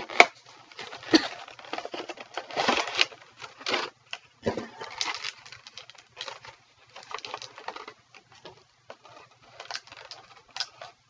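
Clear plastic blister packaging crinkling and crackling as it is handled and pried open. Irregular sharp crackles and clicks, heaviest in the first five seconds, then lighter rustling.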